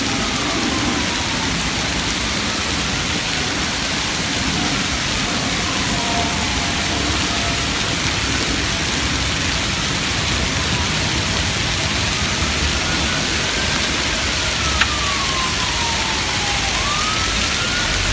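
Hail and rain pelting the paving and ground in a steady, dense hiss. A siren wails faintly in the distance, its pitch slowly rising and falling. A single sharp click comes near the end.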